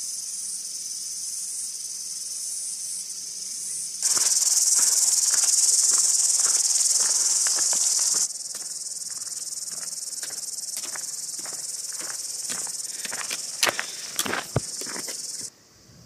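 Loud, steady, high-pitched buzzing of a cicada chorus in hot summer weather, with footsteps on the track. The buzz jumps louder about four seconds in, falls back about eight seconds in, and cuts off suddenly near the end.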